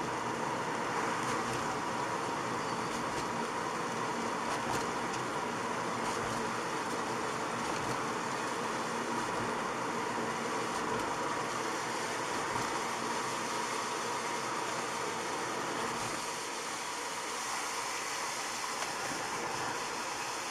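Steady road and tyre noise of a car driving on a wet road, heard inside the cabin, with a faint steady hum.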